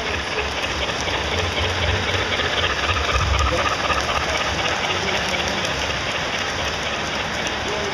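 A steady low mechanical rumble under an even hiss, a little louder in the first half.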